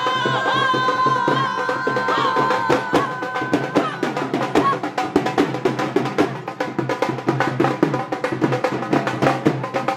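Festive dance music driven by fast, steady drum beats, with a high, held melody line over the drumming for the first four seconds or so, after which the drums carry on alone.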